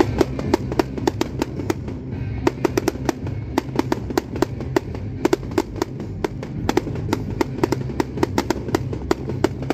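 Fireworks display: a rapid, irregular string of sharp bangs and crackles, several a second, as aerial shells and comets burst, with music playing underneath.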